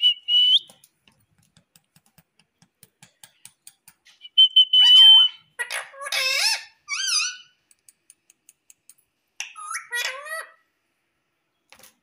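Indian ringneck parakeet whistling and calling: a short steady whistle right at the start, then a longer whistle about four and a half seconds in that runs into warbling calls sliding up and down in pitch, and another short bout of gliding calls near the end. Faint clicks come between the calls.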